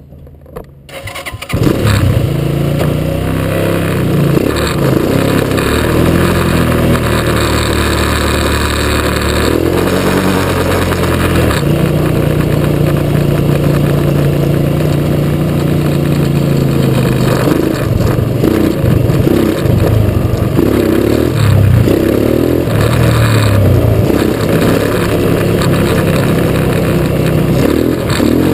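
Quad bike engine starting up about a second and a half in, then running and revving as the bike rides, its pitch rising and falling with the throttle.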